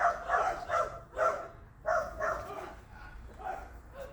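A dog barking repeatedly, about six quick barks in the first two seconds, then a few fainter ones.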